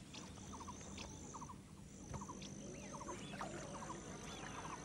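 Faint wildlife ambience. A high, steady insect trill comes and goes over short triple chirps that repeat about once a second, with scattered bird calls growing more frequent toward the end.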